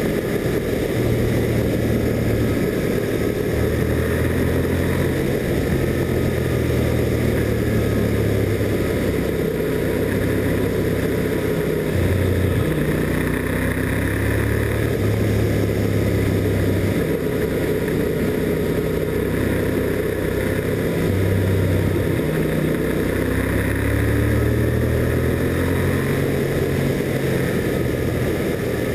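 Motorcycle engine running at road speed, its note rising and falling and shifting in steps as the throttle and gears change.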